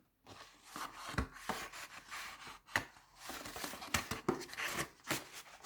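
Paper and card being handled and slid into a paper pocket: soft rustling and scraping with scattered light taps and clicks.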